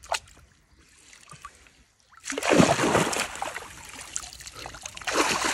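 Water splashing and sloshing as a common carp thrashes in a landing net in shallow water, starting about two seconds in and loudest just after it starts, with a second burst of splashing near the end.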